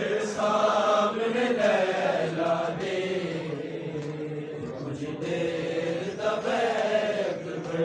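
Noha recitation: a man chanting a Shia mourning lament unaccompanied into a microphone, in long held lines that rise and fall in pitch.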